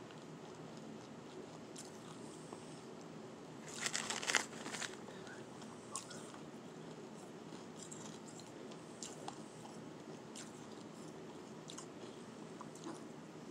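Close-miked bite into powdery shaved ice, a burst of crunching about four seconds in, followed by softer scattered crackles and clicks as it is chewed.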